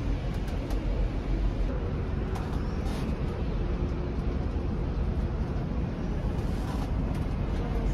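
Steady rumble of a moving city tour bus and passing traffic, heard from the open top deck with wind on the microphone.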